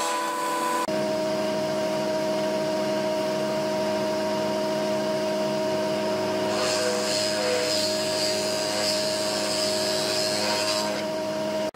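Bench-mounted horizontal boring machine running with a steady electric motor hum and whine; its pitch shifts abruptly about a second in. From about six and a half to eleven seconds a hissier cutting noise joins it as the bit bores into the edge of a wooden board.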